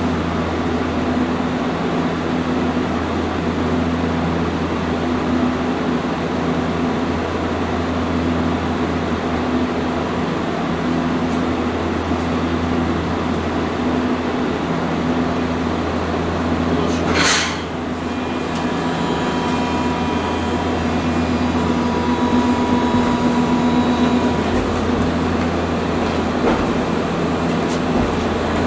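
Inside a Hiroshima Electric Railway 800-series streetcar: loud, steady cabin noise with a low hum and steady tones, which the recordist calls the noisiest tram sound he has recorded. About 17 seconds in comes one short, sharp hiss.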